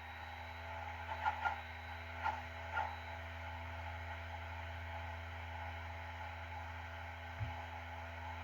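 Four short computer-mouse clicks in the first few seconds over a steady low hum.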